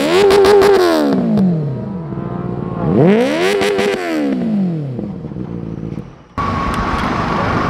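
Motorcycle engine revved hard twice, the pitch shooting up, holding briefly at the top, then dropping back slowly each time. Near the end, an abrupt change to a steadier, noisier engine or traffic sound.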